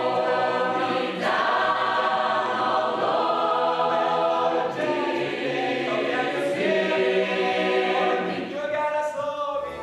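Mixed choir singing held chords that change every second or two, softening slightly near the end.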